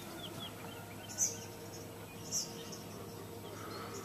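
Small birds chirping: a few faint high chirps, then two short, sharp chirps over a second apart, over a faint steady low hum.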